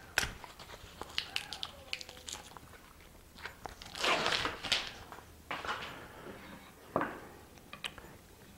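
Wooden cutouts being handled and set into a wooden jig: scattered light knocks and clicks of wood on wood, with a longer scraping rustle about four seconds in and a sharper knock near the end.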